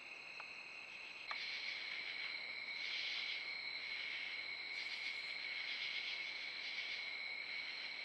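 Steady night chorus of crickets and other insects trilling. About a second in there is a click at a cut between trail-camera clips, and a louder chorus at a slightly lower pitch takes over, swelling now and then.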